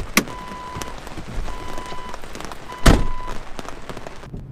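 A car door latch clicks open, and the door-open warning chime sounds three times, about a second apart. Then the door shuts with a heavy thud about three seconds in. Rain patters on the vehicle throughout.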